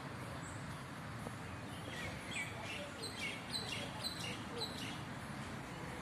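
Small birds chirping in the trees: a quick run of short, high chirps from about two seconds in until about five seconds, over a steady background hum of outdoor noise.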